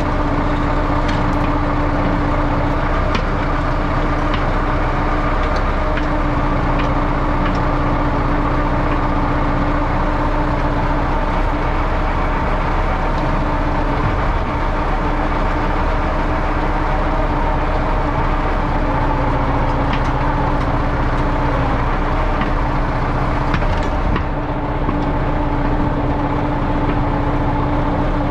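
Diesel engine of a YuMZ EO-2621 tractor-mounted excavator running steadily at an even speed, with a few faint clicks or knocks scattered through.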